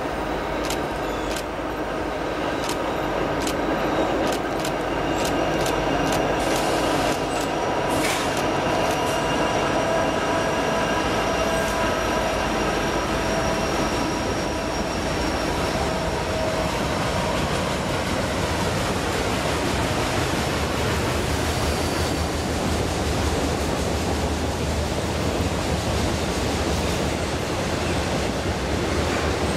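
Freight train passing on a curve: the two diesel locomotives go by first, an EMD SD70ACe leading, then a long string of autorack cars rolls past with a steady rumble of wheels on rail. In the first half there are repeated clicks and thin high squealing tones, typical of wheel flanges on the curve.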